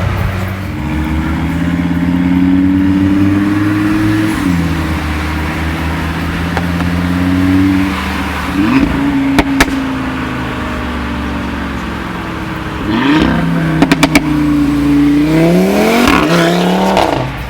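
Audi RS3 Sportback's turbocharged five-cylinder engine accelerating hard through the gears, its pitch climbing and then dropping at each upshift. Sharp exhaust crackles cut in: two about halfway through, and a quick burst of four a few seconds later.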